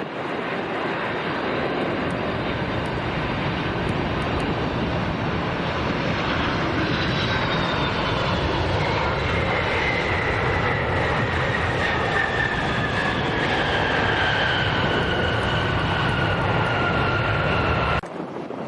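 Jet airliner's engines roaring as the aircraft passes close by, with a whine that slowly falls in pitch as it goes past. The sound cuts off suddenly near the end.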